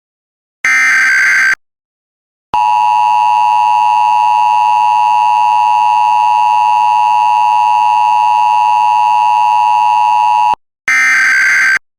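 Emergency Alert System test signal. About a second in there is a one-second burst of SAME header data, then the two-tone attention signal holds steady for about eight seconds and cuts off sharply. Another one-second data burst follows near the end.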